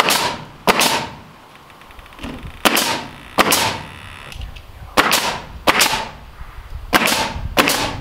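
Nail gun firing eight times, in four quick pairs, driving nails into wooden trim boards.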